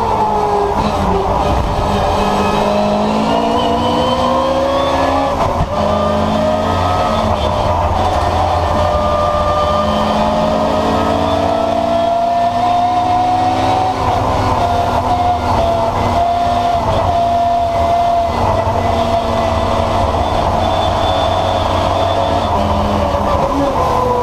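Historic touring race car's engine heard from inside the stripped, caged cabin, revving up through the gears: the pitch climbs, breaks for a quick gearchange about five and a half seconds in, climbs again and holds high revs, then eases off near the end.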